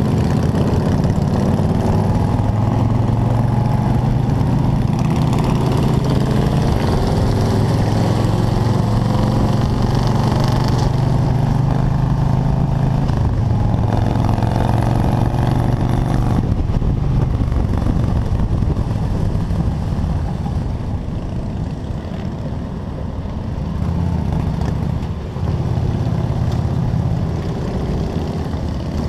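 Motorcycle engine running steadily at highway speed from the rider's seat, with wind and road noise over it; the engine note eases off for a few seconds past the middle.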